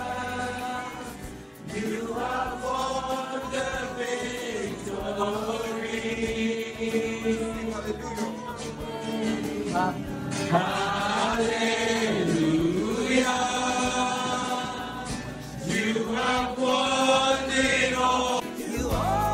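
Gospel worship music: a group of voices singing long held notes over a low, steady keyboard-and-bass accompaniment.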